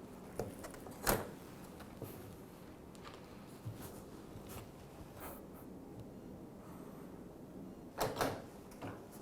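Sharp plastic clicks and knocks as the dishwasher's rack-rail clips and rack are handled. The loudest knock comes about a second in, and a quick cluster of clicks comes near the end.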